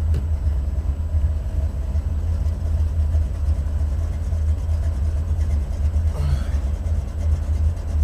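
Buick Regal's Stage-1 455 V8 running with a steady low rumble, heard from inside the car. A brief faint rising sound comes about six seconds in.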